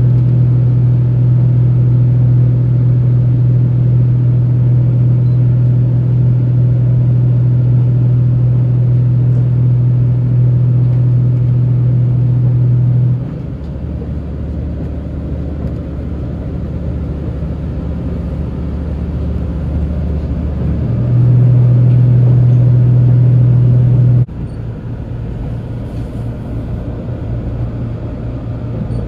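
Diesel railcar engine running steadily as a loud, even drone. About halfway through it drops to a lower, quieter hum, rises again a few seconds later, then cuts back abruptly a few seconds before the end, as the power is notched up and down.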